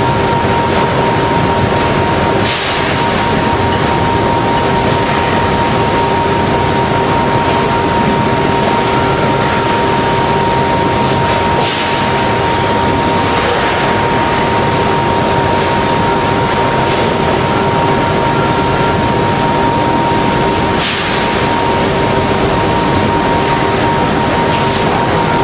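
Magnesium wire treatment of molten iron making a loud, steady roar as the magnesium reacts and flares in the ladle, over a steady whine. A brief sharp burst of noise breaks through three times, about nine seconds apart.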